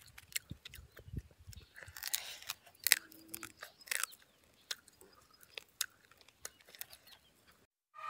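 Close-up chewing of roasted bird meat: irregular wet smacks and crisp clicks of a mouth working, coming thick for the first few seconds and then thinning to scattered smacks.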